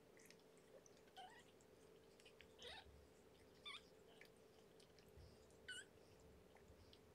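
Young nursing kittens giving about four faint, short, high squeaks, one near the end wavering in pitch, amid soft licking and suckling noises.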